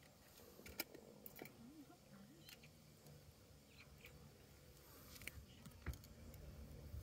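Near silence: faint open-air background with a few scattered soft clicks.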